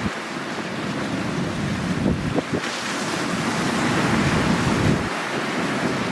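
Sea waves washing on the shore, one surge building about halfway through and easing near the end, with wind buffeting the microphone.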